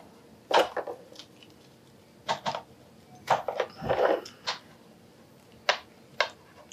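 Small clicks and rustles of a Hasbro Black Series Mandalorian plastic action figure being handled and its joints worked, about ten separate short sounds, with a soft bump about four seconds in.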